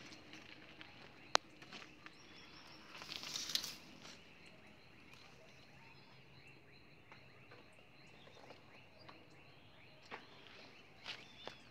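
Quiet outdoor ambience with scattered rustles and clicks. There is one sharp click about a second and a half in and a louder rustle of movement around three and a half seconds, then a few small knocks near the end.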